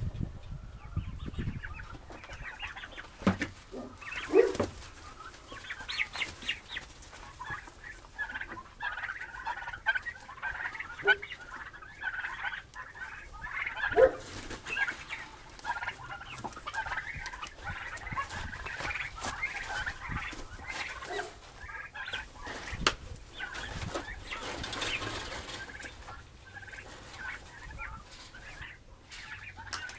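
A flock of chickens clucking, many short overlapping calls going on steadily, with a couple of louder, sharper sounds standing out about four and fourteen seconds in.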